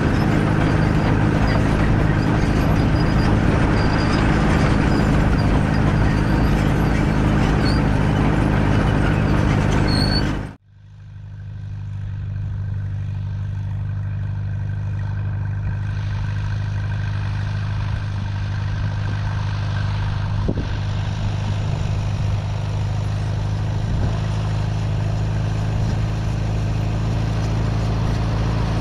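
Allis-Chalmers WD45 tractor engine running steadily under load while pulling a grain drill, loud and close for the first ten seconds or so. Then the sound cuts off abruptly and the engine comes back faint and distant, growing steadily louder as the tractor approaches.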